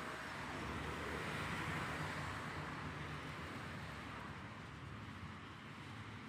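Road traffic passing on a multi-lane road: tyre and engine noise swells about a second or two in and slowly eases, with a low engine hum underneath.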